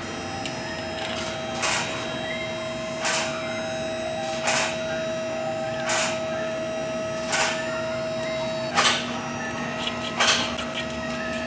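Steady mechanical hum with a brief swishing stroke repeating about every one and a half seconds, like a machine working through a regular cycle.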